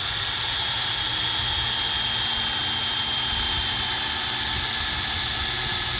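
Cordless drill running steadily under load with a high whine, drilling out a broken stud; its battery is weak.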